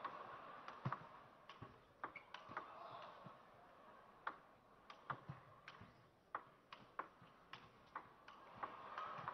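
Table tennis ball clicking sharply against bats and the table, about one to two clicks a second at an uneven pace, over a faint steady murmur.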